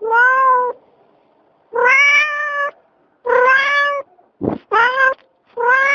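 A cat meowing over and over, about five meows in quick succession, each under a second long, with a short low thump shortly after the middle.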